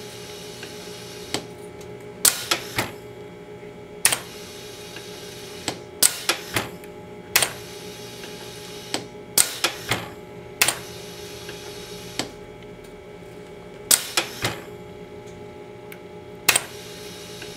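Toroid hook-winding machine running: a steady motor hum under sharp mechanical clacks. The clacks come singly or in quick clusters of two or three every second or two as the hook pulls wire through the small core turn by turn.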